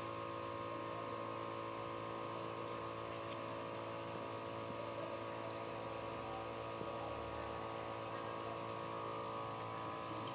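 Steady electrical hum of running workshop machinery, holding several fixed tones at an even level, with a few faint clicks of metal being handled.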